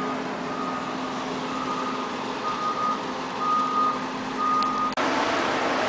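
Back-up alarm of a heavy work vehicle beeping at a steady pitch about once a second over the vehicle's steady engine drone. About five seconds in the beeping stops and a louder rushing noise takes over.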